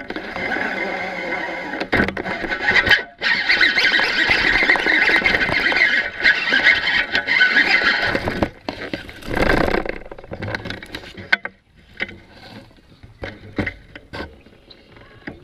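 Fishing reel cranked hard during a bass fight, heard through the rod-mounted camera as a loud whirring squeal for about eight seconds. A louder burst follows, then scattered knocks and clicks of handling as the bass is landed.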